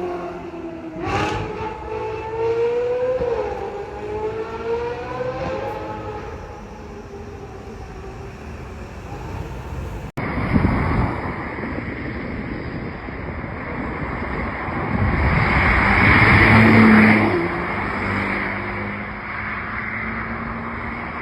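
Lamborghini Huracán STO's naturally aspirated V10 engine revving, its pitch rising and falling as the sound fades away. After a sudden cut about halfway through, a rushing road-and-wind noise takes over, swelling to its loudest about three-quarters of the way in with a brief low engine note.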